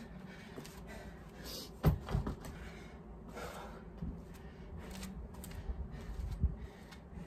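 A pair of hex dumbbells set down on the ground: two heavy thumps close together about two seconds in, followed by a few light knocks and scuffs.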